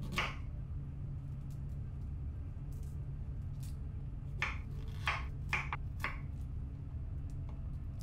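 Chef's knife cutting cauliflower stems on a wooden cutting board: one knock at the start, then four cuts in quick succession between about four and six seconds in, over a steady low hum.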